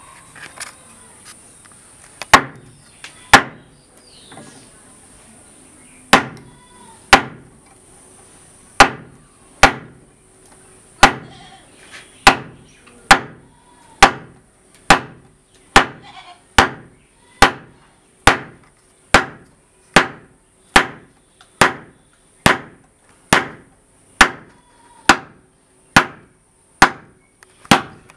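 Hammer striking a wood chisel as it cuts into a wooden door frame. There are two blows, a pause, then a steady run of blows a little more than one a second.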